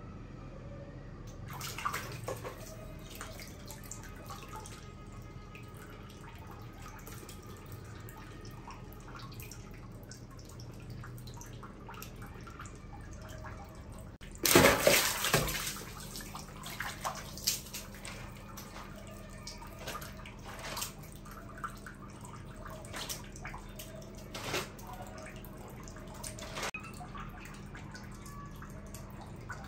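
Water splashing and dripping as a small monkey bathes. There is one big splash about halfway through, then scattered smaller splashes and drips, all over a faint steady hum.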